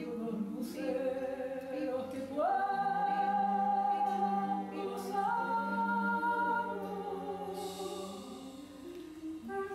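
A small group of women singing together without accompaniment in long held notes. The top voice glides up to a higher note about two and a half seconds in, and steps up again about five seconds in.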